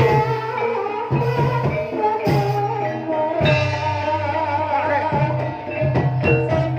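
Live traditional Javanese ensemble music of the kind that accompanies a barong performance: sustained tuned percussion notes over regular drum strokes, with a wavering melody line in the middle.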